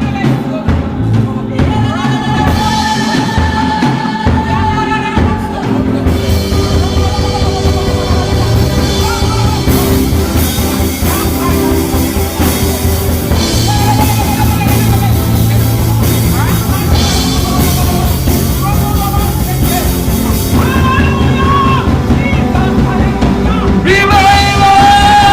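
Live worship band playing with drums, with a voice singing or crying out long held notes over it.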